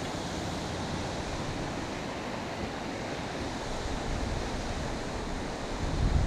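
Steady rushing noise of wind and river water, with wind beginning to buffet the microphone in low gusts near the end.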